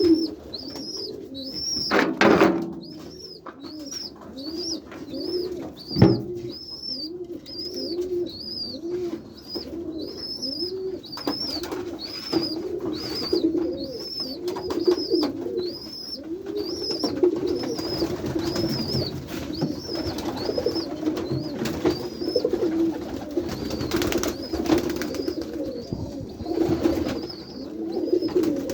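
Many domestic pigeons cooing in a loft, with a steady series of high thin peeps about one and a half times a second running over the coos. Two sharp knocks sound about two seconds and six seconds in.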